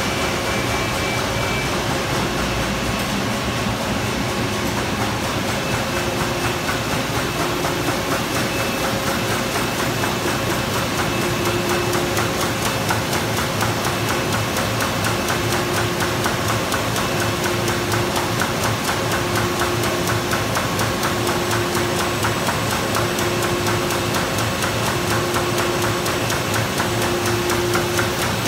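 2008 Komori LS529+CX five-colour sheetfed offset press running, a fast, even, rhythmic mechanical clatter over a steady machine hum.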